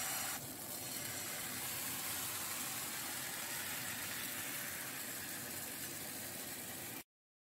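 Hopper batter sizzling in a hot non-stick frying pan as it is poured in and swirled around: a steady hiss that eases slightly about half a second in and cuts off suddenly near the end.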